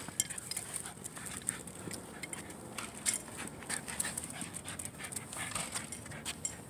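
Shiba Inu panting, with scattered short clicks and scuffs.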